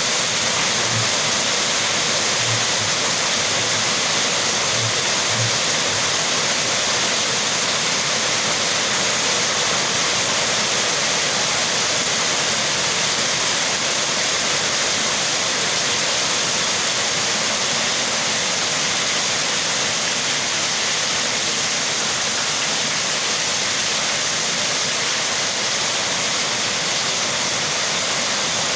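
Steady rain, an even, unbroken hiss of water with no single drops standing out.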